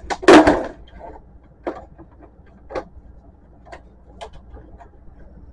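Plastic housing of an HP Photosmart C4480 printer being pried loose and lifted off: a loud plastic clatter just after the start, then scattered light clicks and knocks as the parts are handled.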